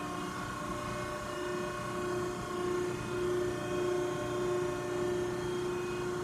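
Cincinnati 90CBX6 CNC press brake's hydraulic pump and motor running steadily at idle, a constant hum with a whine that swells and fades slightly, with the ram not yet cycling.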